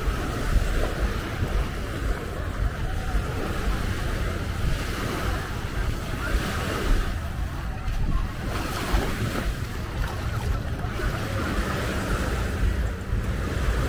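Small surf waves washing up on a sandy beach, with wind buffeting the microphone.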